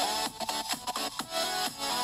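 Background electronic music with a steady beat and held synth notes.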